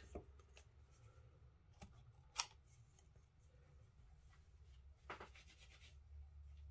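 Near silence with a faint low hum, broken by one sharp tap about two and a half seconds in and a brief rustle about five seconds in.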